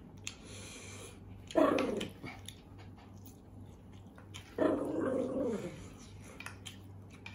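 A dog vocalizing twice: a short call about one and a half seconds in, and a longer one falling in pitch around four and a half seconds. Light clicks of a fork on a plate come in between.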